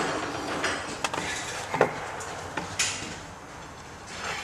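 A few light clicks and knocks of transmission parts and tools being handled, three of them sharper, over a low hiss.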